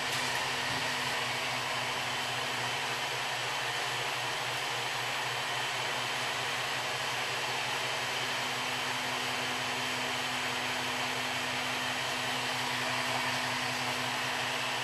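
Malyan M150 3D printer's cooling fans whirring steadily with a faint hum while the printer sits paused for a filament change.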